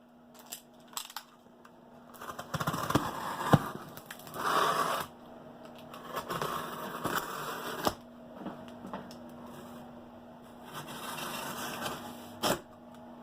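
Cardboard shipping box being opened: irregular scraping, tearing and rustling of cardboard and packing, with scattered sharp clicks and knocks, the loudest about three and a half seconds in.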